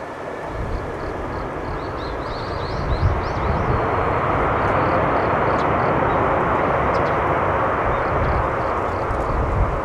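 Boeing 787-8 jet engines at high power in reverse thrust on the landing rollout: a broad jet noise with a low rumble that builds over the first few seconds, then holds loud.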